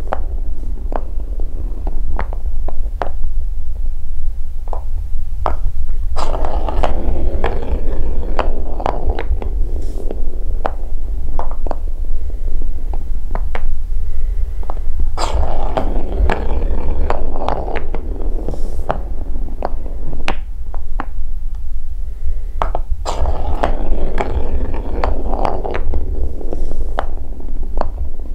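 Big wooden balls rolling along a wooden marble-run track: a steady low rumble with frequent sharp knocks as they cross the joints between track pieces and strike each other. Three stretches of dense clattering come in the middle and near the end.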